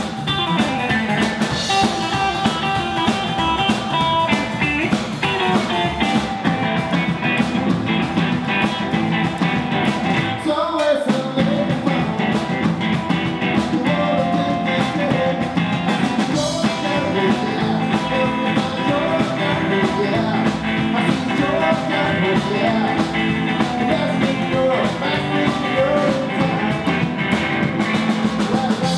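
Rockabilly band playing live: upright double bass, electric guitar and drums, with a man singing lead.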